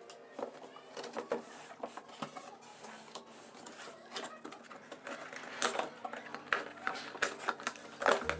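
Irregular sharp plastic clicks and rattles from the toy remote-control car being handled, the loudest a cluster near the end.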